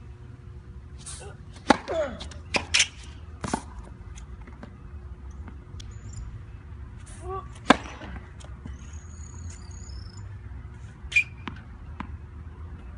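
Tennis balls popping on a hard court: scattered sharp single impacts of balls being bounced and struck, the loudest about 2 and 8 seconds in.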